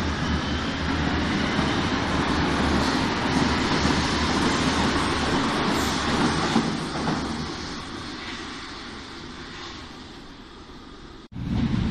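A Berlin U-Bahn train pulling out of an underground station: steady rumble and rolling noise that fades away as the train goes into the tunnel. About 11 seconds in it cuts abruptly to a louder low rumble.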